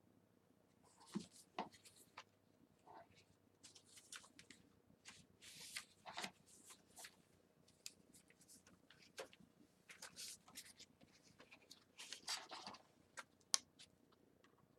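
Soft, scattered rustling of paper pages and inserts of a handmade journal as they are handled and turned, with a few light clicks.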